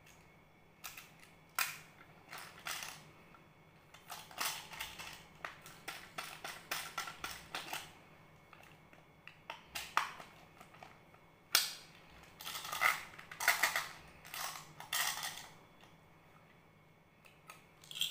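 Hard plastic candy-toy wheel capsules handled and pried open: sharp plastic clicks and snaps between stretches of scraping and rattling, with the candy-coated chocolates shifting inside the clear shells.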